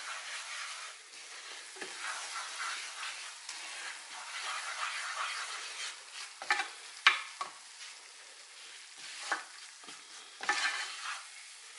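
Wooden spoon stirring and scraping flour cooking in melted butter in a nonstick pan, a roux, with a light sizzle; several sharp knocks of the spoon against the pan in the second half.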